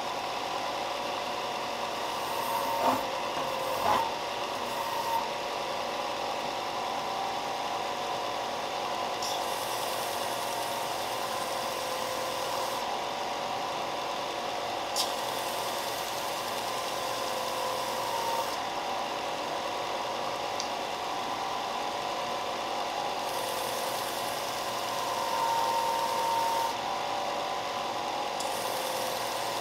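Shop Fox benchtop belt sander running with a steady tone, while small wooden coasters are pressed against the belt in spells of a few seconds, each adding a hiss of sanding. A few sharp knocks come in the first few seconds and once about halfway.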